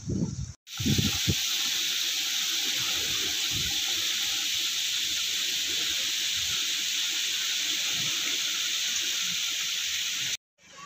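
Water pouring from the two spouts of a stone wall fountain into its pool: a steady, even splashing hiss, with a few low thumps in the first second. The sound cuts off suddenly near the end.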